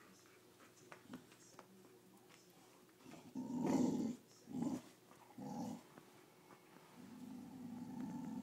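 Dogs growling in play during a tug-of-war over a toy: quiet for the first three seconds, then a few short growls and a longer, steady growl near the end.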